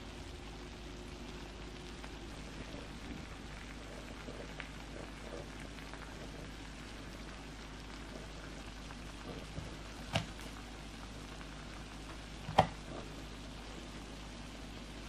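Spicy sauce sizzling steadily on a griddle pan under webfoot octopus and shrimp, with a few faint ticks and two sharp clicks about ten and twelve and a half seconds in, the second the louder.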